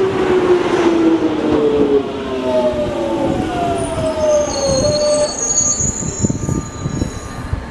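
London Underground Jubilee line 1996 Stock train slowing into a platform: its traction motors whine in several tones that fall steadily in pitch as it decelerates. From about four seconds in, high squeals join over a rough rumble and knocks from the wheels.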